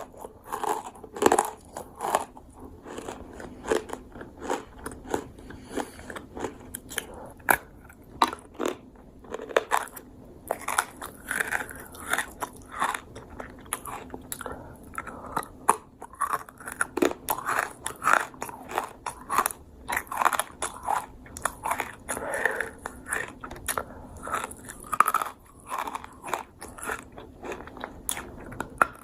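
Crunchy dried fruit being bitten and chewed, with irregular sharp crunches several times a second.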